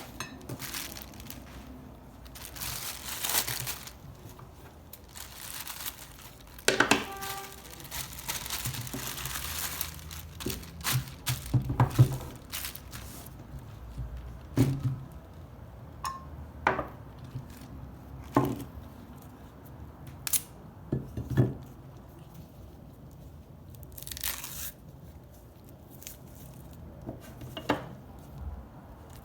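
Bananas being unwrapped: tearing and crinkling, with short rustling stretches and scattered clicks and knocks from handling.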